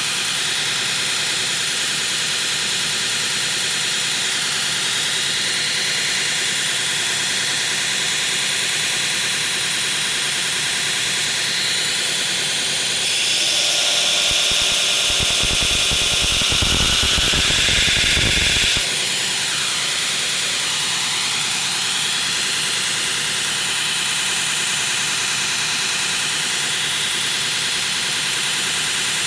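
Belt grinder running a coarse 36 grit belt against a steel knife blade, grinding in the bevel with a steady hissing grind. For about five seconds in the middle the grind gets louder and fuller.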